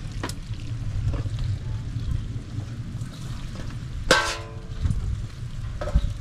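Cooked spaghetti being tipped from a metal bowl into a pot of sauce and stirred in with metal utensils, with soft clinks. About four seconds in, one metallic clang rings briefly.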